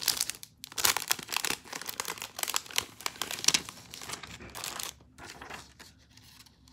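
Clear plastic packaging bag crinkling as it is torn open and handled, a dense crackle for about five seconds that thins out near the end.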